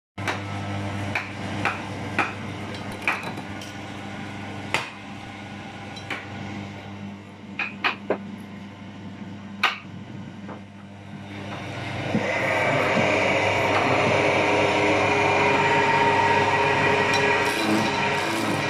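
Wood lathe: a steady low hum with a series of sharp knocks around a square wooden blank mounted between the centres. About twelve seconds in, a hand-held turning tool starts cutting the spinning blank, and the knocks give way to a louder, steady rough cutting noise of wood being turned round.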